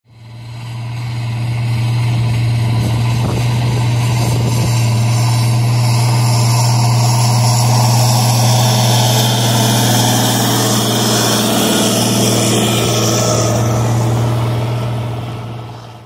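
Large four-wheel-drive farm tractor's diesel engine running steadily under load with a deep, even hum. It fades in over the first couple of seconds and fades out near the end.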